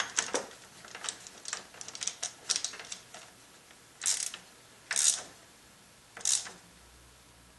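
Hand ratchet with a 9/16 socket tightening a nut: a run of quick clicks over the first three seconds, then three short ratcheting bursts near the end.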